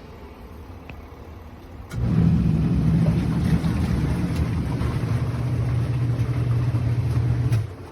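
Twin-tub portable washing machine's motor starts up about two seconds in and runs with a steady low hum.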